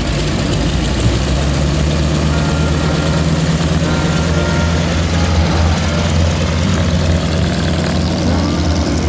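The three radial engines of a 1929 Ford Tri-Motor run at low taxi power, a steady deep drone with propellers turning, as the airliner rolls off across the ramp.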